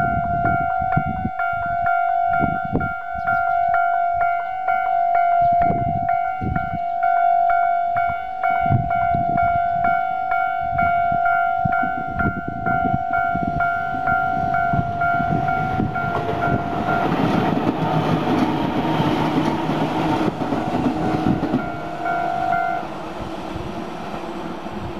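Japanese level-crossing alarm ringing its standard electronic tone, pulsing evenly, with wind buffeting the microphone. About sixteen seconds in, a Tobu Nikko Line train passes with a broad rushing rumble, and the alarm stops shortly before the end.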